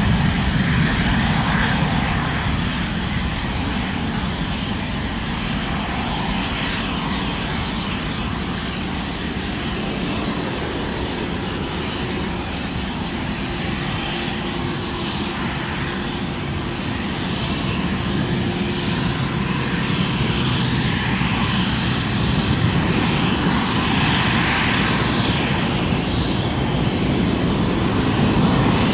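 Boeing 737 MAX 8-200's CFM LEAP-1B turbofan engines at takeoff thrust, a continuous jet roar. It is loudest at the start, eases off in the middle as the aircraft rolls away down the runway, and swells again as it climbs out.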